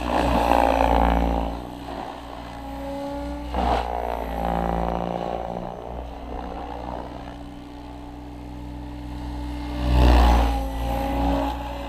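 Goblin 700 electric RC helicopter flying aerobatics: the motor whine and the whoosh of the rotor blades rise and fall in pitch as it swings about. It is loudest about a second in and again near ten seconds, when it passes close.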